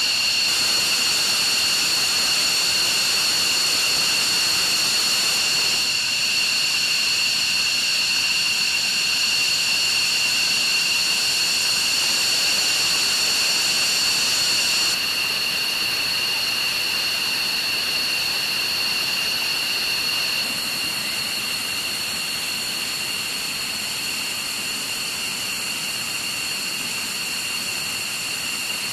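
F-15E Strike Eagle's twin turbofan engines running at ground idle: a steady high-pitched whine over a rushing hiss, stepping a little quieter about halfway through and again later.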